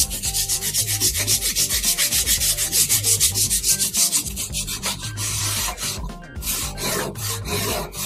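A ball of crumpled aluminium foil scrubbed rapidly back and forth along a rusty steel clamp bar, scouring off rust loosened by white vinegar. The strokes are quick and even, a little softer in the second half.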